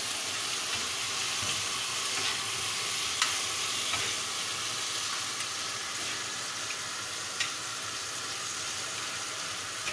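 Egg, onion and tomato masala sizzling steadily in ghee on a tawa while a metal spatula stirs and scrapes it. A few short, sharp taps of the spatula on the pan.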